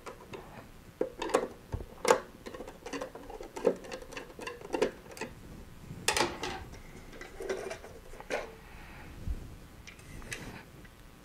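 Flathead screwdriver turning out the screws of the plastic terminal cover on a CU382 controller housing, with the cover then being handled off. It gives irregular light clicks, ticks and scrapes of metal on plastic.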